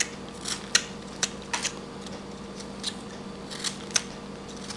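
A hand carving blade slicing small chips from a whittled wooden figure: a string of short, sharp snicks, irregularly spaced, about ten in all.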